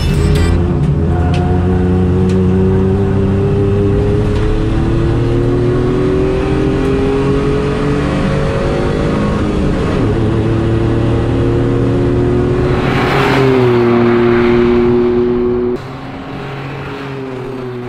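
A 1.0-litre three-cylinder City Car Cup race car engine under load, its revs rising steadily for several seconds, then dropping and holding lower near the end after a brief rush of noise.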